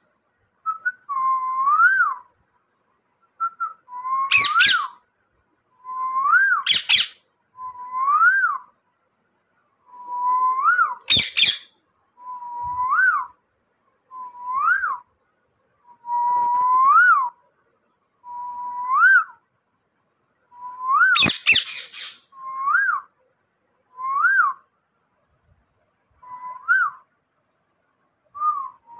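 Rose-ringed parakeet whistling the same phrase over and over, about every two seconds: a held note that swoops up at the end. A few short, loud, sharp sounds break in between the whistles.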